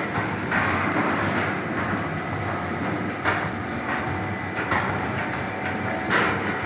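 Citrus washing and sorting conveyor running with a steady clattering rattle as the fruit rolls and tumbles over its perforated stainless-steel grading channels, with sharp knocks now and then.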